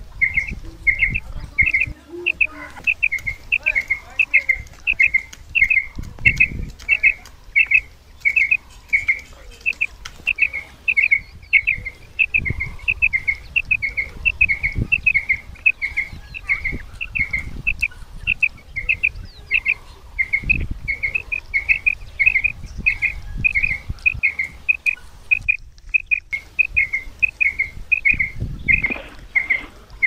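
Female quail call, a short high note repeated about twice a second without letting up, used as a lure to draw quail in. It breaks off briefly near the end, and a few dull low thuds sound underneath.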